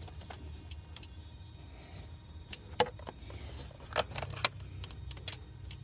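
Scattered light metallic clicks and knocks of tools and parts being handled while working on a car, over a low steady rumble.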